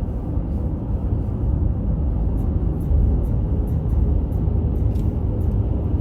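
Steady low rumble of a vehicle on the move: engine and road noise with no distinct events.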